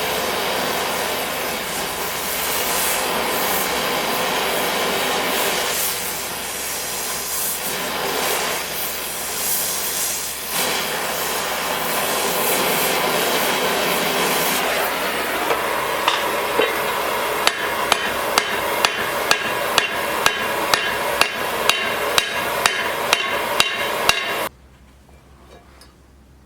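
For about fifteen seconds a steady, loud roar, then hammer blows on steel at about one and a half a second, each with a short metallic ring, over the same roar. Everything cuts off suddenly near the end.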